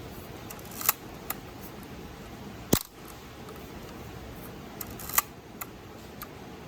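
The shutter of a Praktica MTL 5B SLR, a vertical metal shutter, fires once about three seconds in with a sharp mechanical click, the loudest sound here. Several lighter clicks come before and after it as the camera's controls are handled.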